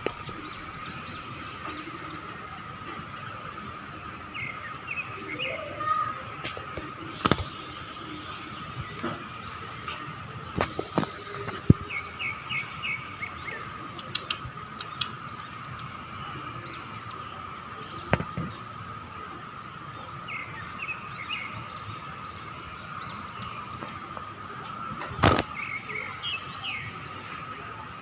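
Birds chirping in short quick series, again and again, over a steady high hum, with a few sharp clicks or knocks, the loudest near the end.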